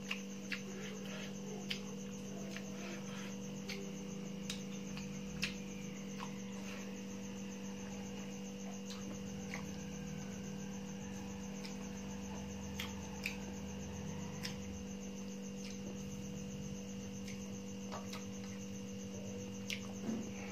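Steady electrical mains hum, with scattered faint clicks and smacks of someone eating rice by hand from a steel plate.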